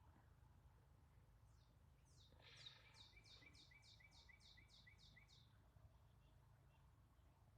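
A songbird singing faintly: one rapid run of about ten quick downslurred high notes, lasting about four seconds.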